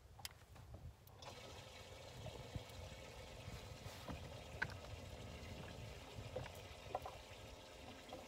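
Electric trolling motor on a bass boat switching on about a second in and running with a steady whine over the wash of water. Small clicks are scattered over it.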